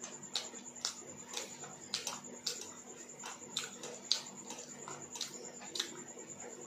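Wet chewing and lip-smacking of a mouthful of rice and kadhi (yogurt curry), with sharp smacks about twice a second.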